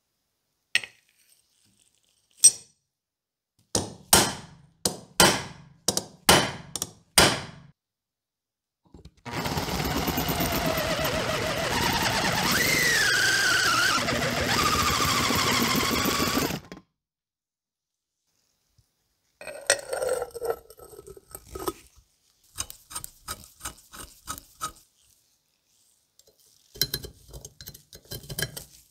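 A quick run of about seven sharp metal knocks, then a step drill boring out and deburring a hole in the iron's thin steel lid for about seven seconds, a steady cutting noise with a wavering whine. Near the end come light clicks and scraping of metal being handled.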